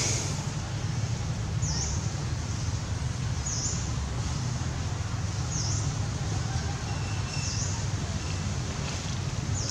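Outdoor ambience: a short, high chirp, probably from a bird or insect, repeats about every two seconds over a steady low rumble and hiss.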